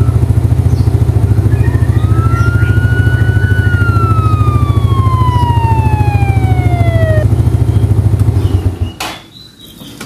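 2006 Yamaha Mio Sporty's single-cylinder engine idling with a rapid, even pulse, then shutting off near the end, followed by a click. Over the idle, a fainter siren-like wail rises, holds, and then slides slowly down over several seconds.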